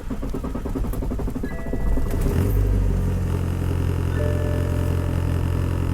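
A cold diesel car engine running with a rapid, uneven beat. About two and a half seconds in, background music with sustained notes comes in and carries on.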